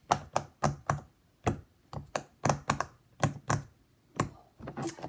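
Silicone pop-it fidget toy having its bubbles pressed one after another: a dozen or so sharp popping clicks, about two or three a second, unevenly spaced.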